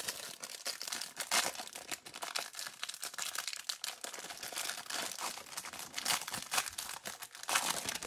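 Clear cellophane wrapper of a pack of Select basketball cards crinkling and tearing as it is peeled off the card stack by hand, a dense run of small crackles.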